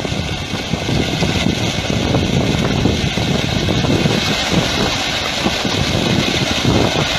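Boat motor idling, a steady low rumble.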